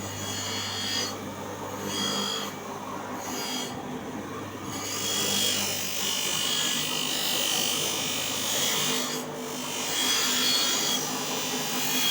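A tool rasping against brass in long scraping strokes, with a few short pauses between them.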